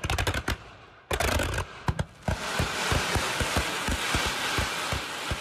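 Daytime fireworks going off: rapid strings of sharp bangs, then, about two seconds in, a dense crackle with scattered pops.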